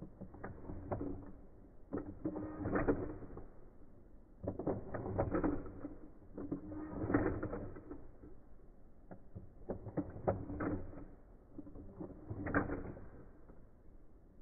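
Plastic toy battle controllers being worked by hand, their lever mechanisms clicking and clattering in quick bursts about every two seconds as the mounted action figures swing and clack against each other.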